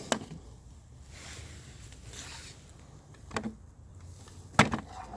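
Handling noise: a few sharp clicks and knocks, the loudest about four and a half seconds in, over a low steady rumble and a soft hiss.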